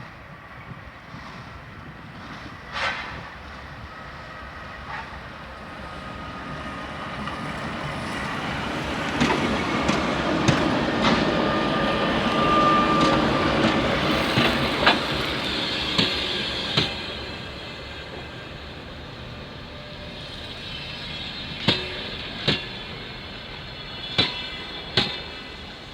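TEP70 diesel passenger locomotive and its train rolling past as they arrive: the engine and wheel noise build to a peak about halfway through and then fade, with a brief brake squeal at the peak. Wheels click sharply over rail joints in a cluster mid-way and again several times near the end.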